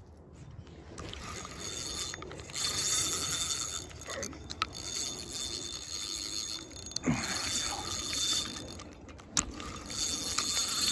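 Spinning reel's drag buzzing in repeated runs, about four or five of them, as a hooked salmon pulls line off the spool, with a few sharp clicks between runs.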